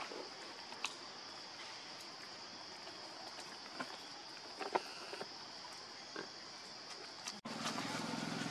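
Steady high-pitched drone of forest insects, broken by a few brief sharp clicks and knocks. About seven seconds in, the sound cuts abruptly to a louder, low steady hum.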